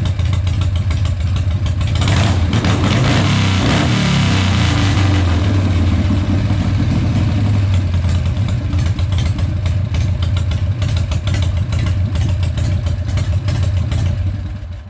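1978 Harley-Davidson Shovelhead V-twin running on its freshly rebuilt S&S Super E carburetor on a test fire. The engine is revved up and back down about two to four seconds in, then idles steadily and cuts off just before the end.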